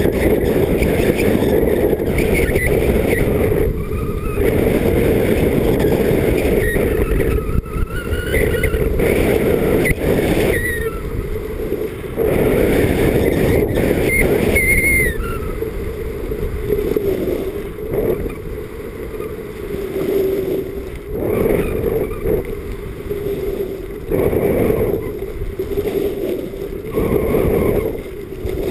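Wind buffeting the microphone of a skier's body-worn camera on a fast downhill run, with the skis scraping over packed snow. The rush rises and falls with the turns.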